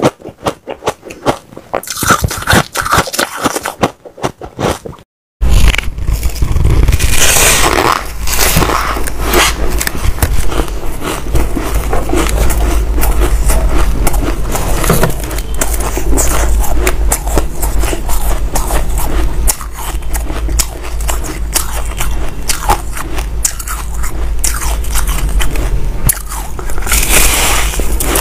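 Close-miked biting and crunching of chunks of powdery white ice, a dense run of crisp crackles and crunches. The sound cuts out briefly about five seconds in, then the crunching goes on over a low hum.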